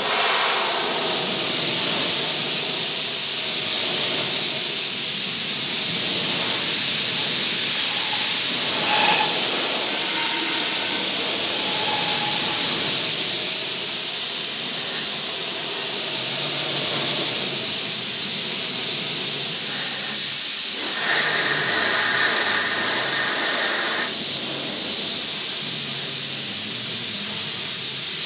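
Compressed-air gravity-feed spray gun hissing steadily as it sprays black paint.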